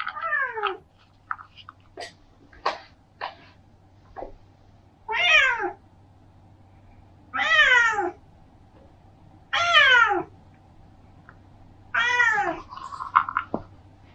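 Domestic cat meowing five times, each meow long and falling in pitch, spaced two to five seconds apart, asking for a piece of kibble held out in front of it.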